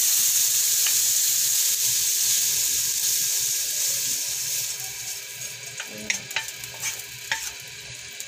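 Pork liver cubes sizzling in oil in a non-stick wok as a wooden spatula stirs them. About halfway through the sizzle dies down, and the spatula scrapes and knocks a few times as the liver is scooped out onto a plate.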